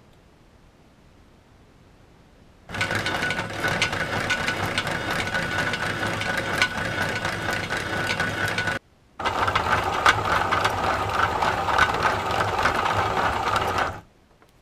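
Electric drive motor and gearbox of an RC-converted toy bulldozer running, with many rapid clicks from the gears and tracks. It starts a few seconds in, stops for a moment about halfway, runs again, then cuts off near the end.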